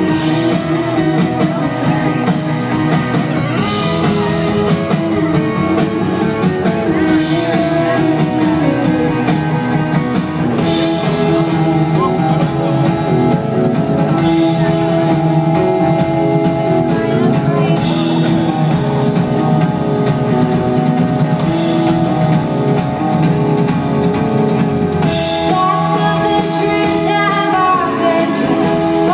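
Live indie pop band playing: drums, electric guitar and keyboards with a woman singing, recorded from the audience.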